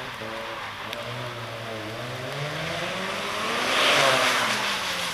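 Mazda RX-7 FD's twin-turbo 13B-REW two-rotor rotary engine under way, its note dipping, then climbing as it revs. It swells loudest about four seconds in as the car passes close.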